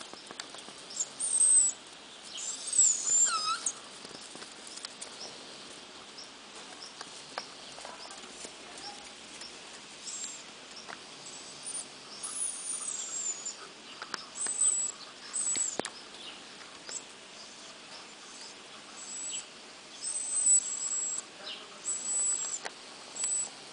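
Young puppy whimpering in short, high-pitched squeaks that come and go.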